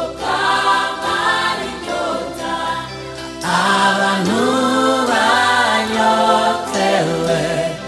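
Gospel choir of mixed voices singing in Kinyarwanda with instrumental backing, growing louder about three and a half seconds in.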